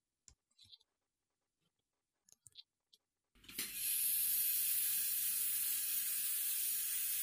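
A few faint small clicks as parts of the octagonal watch bezel are handled, then about three and a half seconds in a blast cabinet's air nozzle starts with a sudden, steady, loud hiss as the bezel is blasted.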